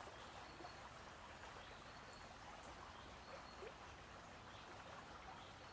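Near silence: the faint, steady rush of a shallow stream.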